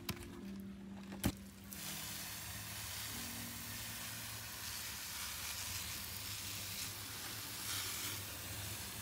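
Hand-pump pressure garden sprayer misting water onto plant leaves: a click, then a steady hiss of fine spray starting about two seconds in.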